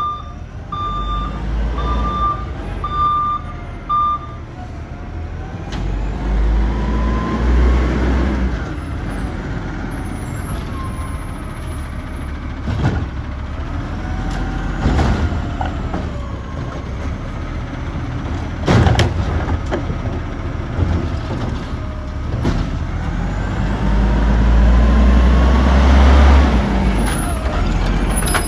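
Natural-gas-powered automated side-loader garbage truck: a reversing beeper sounds about once a second for the first few seconds. Then the engine revs twice in heavy low surges while the hydraulic lift arm works, with wavering whines and several sharp knocks as carts are handled.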